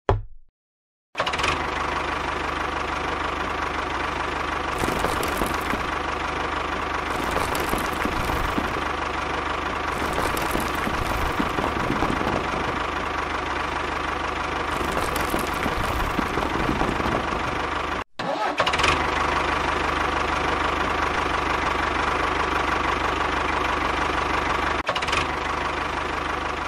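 An engine running steadily, coming in abruptly about a second in and breaking off for a moment about two-thirds of the way through.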